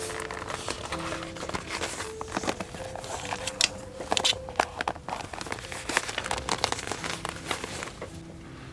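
Paper and packaging crinkling and rustling as journaling materials are handled, with a run of sharp crackles through the middle.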